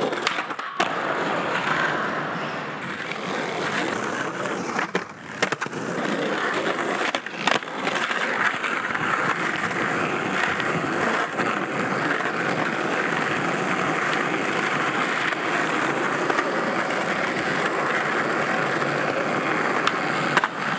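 Skateboard wheels rolling over rough asphalt in a steady gritty noise, broken by a few sharp clacks of the board popping and landing tricks: near the start, about five and seven seconds in, and again near the end.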